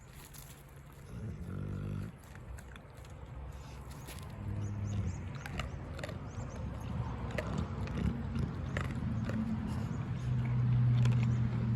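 Cane Corso vocalising in low, drawn-out tones at its food: briefly about a second in and again around four seconds in, then a longer, louder one near the end. Scattered sharp clicks from its eating run between them.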